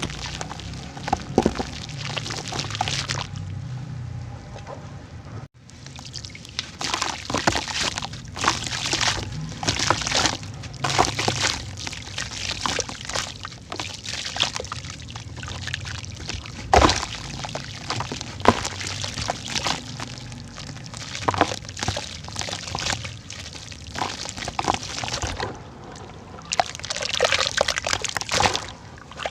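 Big cylinders of red dirt (sand-cement) crumbling in water: a dense run of small cracks and pops over water sloshing and pouring, with a brief break about five and a half seconds in.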